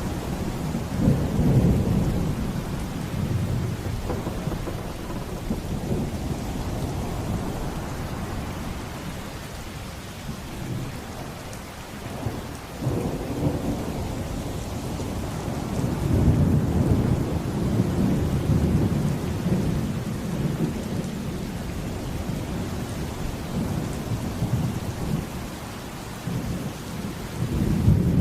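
Steady heavy rain with rolling thunder: deep rumbles swell up about a second in, again around the middle, and near the end.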